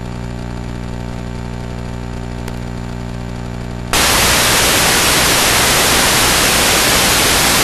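Analog FPV video receiver's audio channel carrying a steady low electrical hum, which about four seconds in cuts abruptly to loud, steady hiss of static. The static is the receiver's no-signal noise: the video link from the drone has been lost.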